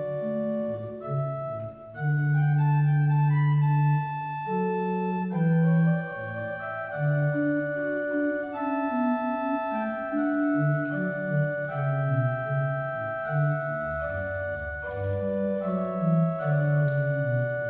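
Church organ playing slow music in sustained chords, the notes shifting every second or two.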